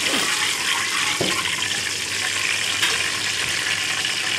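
Hot oil sizzling steadily in a kadai with garam masala frying in it, with two strokes of a steel ladle against the pan in the first second or so.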